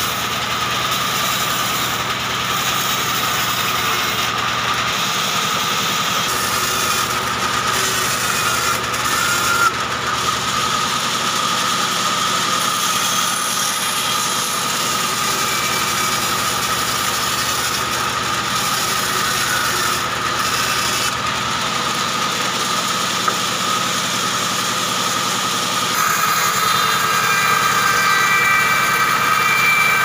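A large vertical band saw running steadily while a short hardwood log is pushed through the blade and sawn into slabs. There is a steady high hum over the cutting noise, and it gets a little louder near the end.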